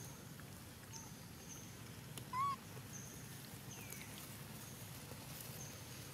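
Outdoor ambience with short, high chirps repeating throughout. A little over two seconds in comes one louder arched animal call that rises and then falls, and a smaller falling call follows about a second and a half later.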